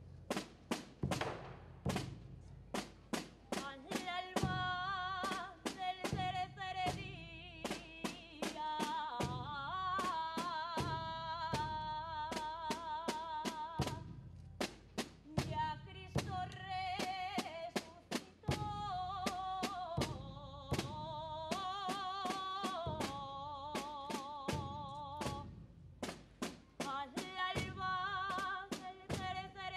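A woman singing a saeta, the unaccompanied flamenco-style song sung to a procession image, through a microphone. She sings in long, melismatic phrases with a strong vibrato, with short breaks between them, while procession drum strokes sound underneath.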